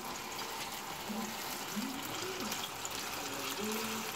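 Chili paste frying in oil in a stainless steel pan, a steady sizzling hiss as it is stirred.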